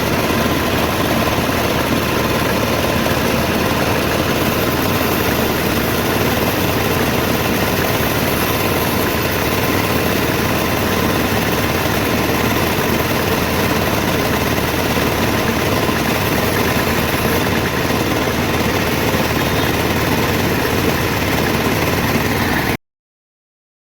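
A steady, loud mechanical drone of a running machine, with no separate knocks or strikes, that cuts off suddenly near the end.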